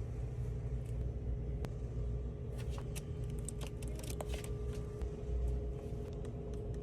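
Steady low rumble and a faint constant hum of store background noise, with a few scattered light clicks and rattles.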